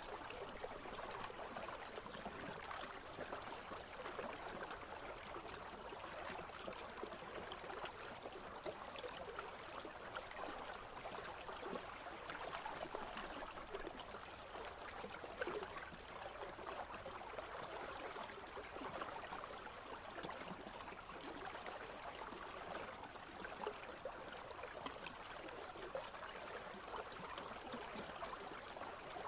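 A shallow country stream flowing steadily over stones, a constant babbling trickle.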